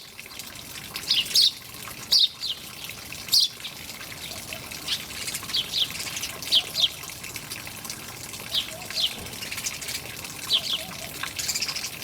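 A songbird repeating short, high, falling chirps, mostly in pairs, every second or two, over the steady hiss of running water.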